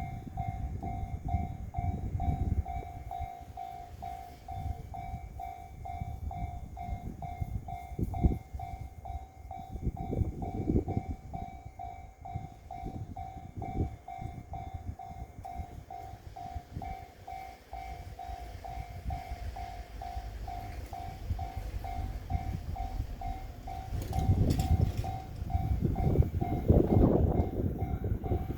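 Japanese railway level-crossing alarm ringing its electronic bell tone over and over, about two rings a second, under heavy wind buffeting on the microphone. A louder low rumble builds in the last few seconds as the train nears.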